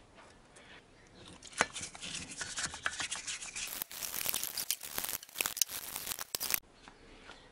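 A brush scrubbing a wet, oily car cylinder head in a plastic tub: a dense run of rapid scraping strokes for about three seconds in the middle. Before it come faint clicks and taps of metal parts being handled, one sharper click about a second and a half in.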